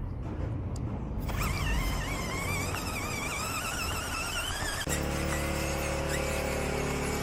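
Small electric motor and geartrain of a 1:24 RC crawler whining, the pitch wavering and slowly rising with the throttle. About five seconds in, the sound changes abruptly to a steadier, lower hum.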